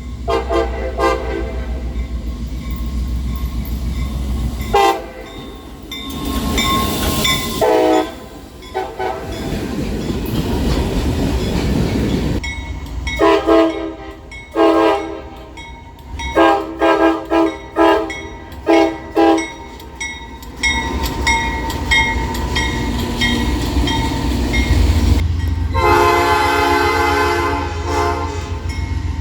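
Locomotive air horns sounding across several separate clips: held chord blasts, and in the middle a quick string of about ten short toots, over the low rumble of a moving train.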